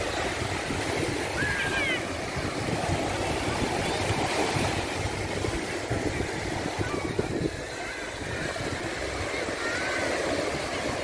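Sea waves washing on a sandy beach, a steady surf noise with wind rumbling on the microphone. A few short high chirps come through about two seconds in and again near the end.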